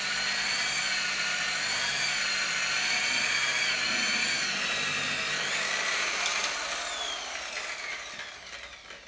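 Electric rotary polisher with a foam pad buffing car clear coat: a steady motor whine that wavers slightly as it works the paint. About five and a half seconds in it is switched off and winds down, its whine falling in pitch and fading out.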